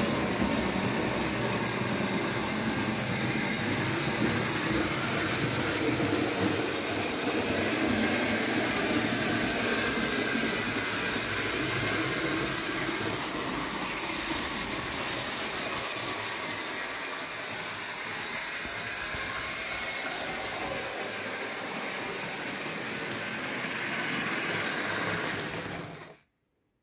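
H0 model railcar on an old Märklin 3025 motor chassis running on old Märklin metal track: a steady whirr of the AC motor and gears with the rattle of the wheels on the rails. It cuts off suddenly near the end.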